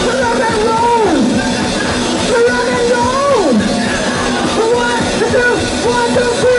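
Live rock'n'roll band playing loudly, drums and electric instruments driving under a wailing lead line that swoops down in pitch again and again.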